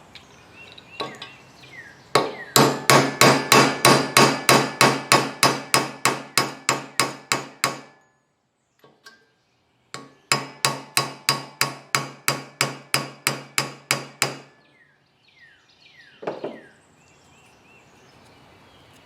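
Hammer tapping rapidly and repeatedly, about four strikes a second, in two runs of several seconds with a short pause between, then one last knock. The taps are driving on the small-engine generator's valve to free it where varnish is holding it stuck open, the cause of the engine's lost compression.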